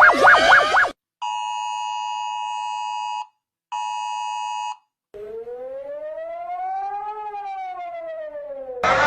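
A run of emergency alert alarm tones: a fast warbling tone cuts off about a second in, followed by two bursts of a steady multi-tone alert beep with a short gap between them. Then a single tone slowly rises and falls like a siren wail, and near the end a louder rising siren sweep starts.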